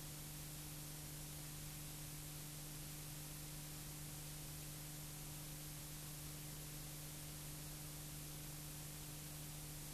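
Steady hiss with a constant low hum and no sound of the scene itself: the blank soundtrack of a transferred silent cine film.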